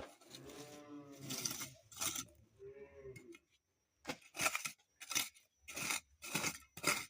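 Two short pitched sounds near the start, then, from about four seconds in, a run of repeated scraping strokes, about one and a half a second.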